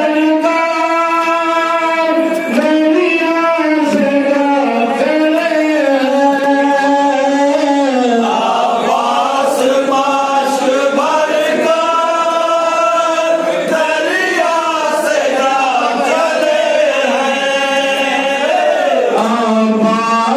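Men's voices chanting a noha, a Shia lament, unaccompanied, with long held notes that waver and slide in pitch.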